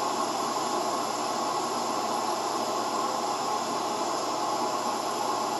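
Propane torch burner firing into a two-brick forge, its flame making a steady, even hiss with the forge running above 2,000 degrees.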